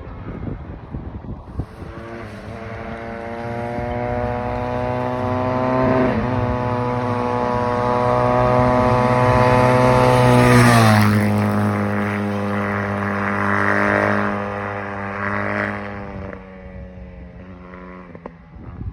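Honda CRF150RB dirt bike's single-cylinder four-stroke engine running at fairly steady revs. It grows louder for about ten seconds, then its pitch drops sharply and it fades away, as the bike rides past and off.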